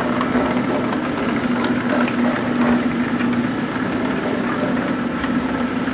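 1850s New Haven lathe running under belt drive from a line shaft, its flat belt, cone pulley and back gears turning: a steady mechanical whir with an even hum and light ticking.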